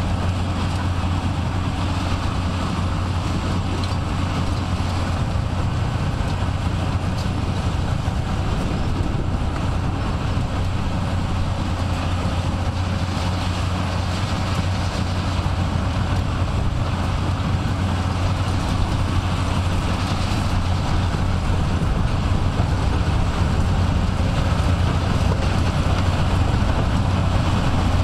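Heavy demolition machinery running: a steady low rumble with no distinct knocks, growing slightly louder near the end.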